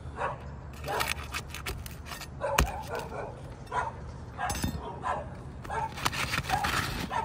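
A brittle Owens Corning three-tab asphalt shingle being pried loose from its nails with a flat bar: repeated scraping and cracking, with one sharp crack a little over two seconds in. A dog barks on and off through it.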